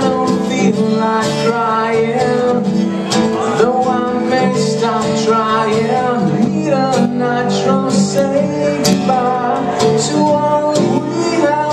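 Two acoustic guitars played together live, with a man singing over them.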